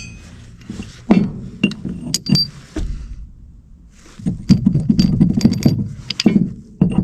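Steel parts and tools clinking and knocking together while a pin is worked into a log loader's bracket: a few separate sharp clinks, then a denser clatter of metal on metal about four seconds in.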